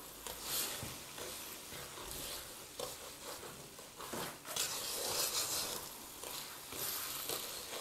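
Wooden spoon stirring and scraping a crumbly mixture of starch, butter and sugar in a steel bowl, in slow, uneven strokes, with the sugar being worked in for hasude.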